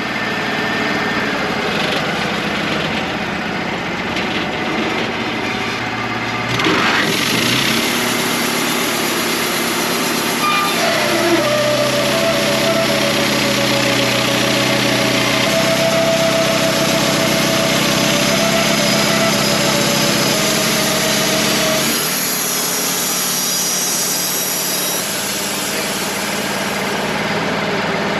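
Wood-Mizer LT35 portable band sawmill running steadily. About seven seconds in the sound grows louder and fuller. From about eleven seconds a higher, wavering whine rides over the engine, and it drops away at about twenty-two seconds.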